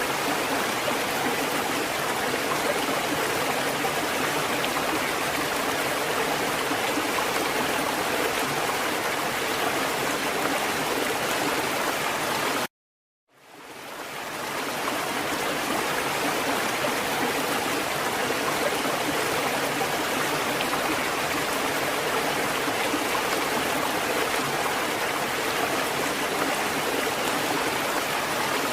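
Steady rushing of flowing water, an even dense splashing with no rhythm. About thirteen seconds in it cuts out to silence for about half a second, then fades back up over a second or so.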